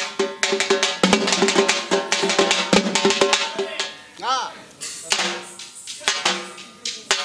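Rapid, driving drumming with many quick strikes, over a held high tone for the first three and a half seconds. A brief rising-and-falling call comes about four seconds in, and the drumming then goes on in sparser strikes.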